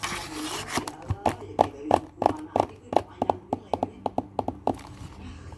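A short rustle of packaging, then a run of light, irregular taps, about two or three a second, from fingers tapping on packaging.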